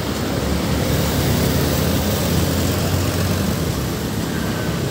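Road traffic with a bus engine running close by: a steady low drone under even traffic noise.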